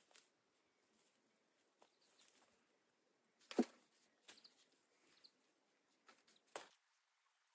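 Near silence with a few faint, scattered knocks and rustles; the clearest knock comes about three and a half seconds in.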